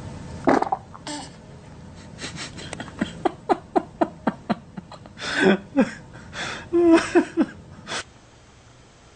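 Person laughing: a run of short, quick pulses at about four a second, building into louder outbursts, and stopping abruptly near the end. A brief loud sound comes about half a second in.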